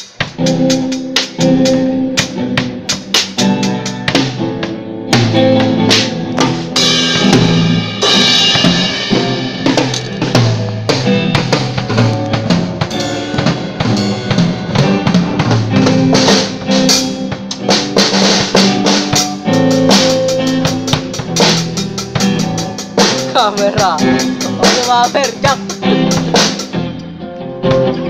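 Yamaha drum kit played live: many quick strikes on the drums and cymbals. Pitched instruments hold notes underneath, as a band plays through a sound check.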